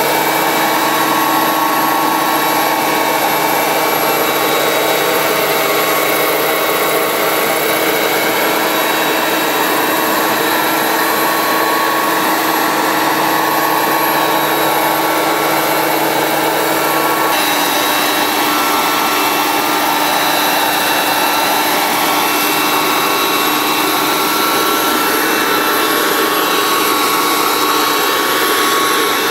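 Vario CH-53 Super Stallion radio-control helicopter driven by a single JetCat microturbine, in flight: a steady turbine whine of several high tones over a rushing noise. In the second half some of the tones glide up and down in pitch.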